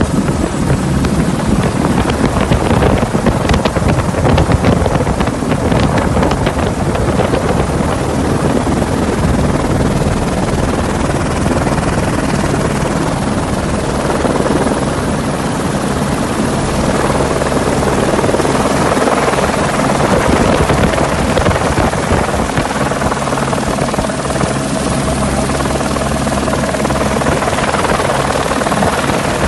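Helicopter rotor and turbine running steadily, heard from on board: a loud, even low rotor hum with a thin high whine over it.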